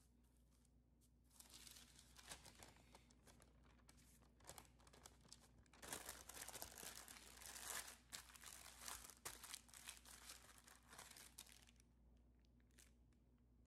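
Soft, irregular crinkling of parchment paper being folded and pressed around a mound of crumbly pie dough, starting about a second in and loudest in the middle.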